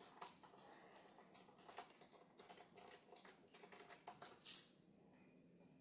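Faint, quick clicks and scratches of a small screwdriver turning out the tiny corner screws of a laptop's LCD panel, with one louder click about four and a half seconds in, after which the clicking stops.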